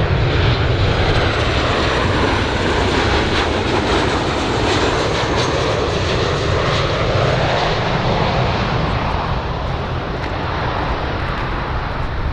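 Twin-engined Boeing 737-800 business jet on final approach, its CFM56-7 turbofans running at approach power: a steady rushing jet noise with a faint high whine, easing off slightly over the last few seconds.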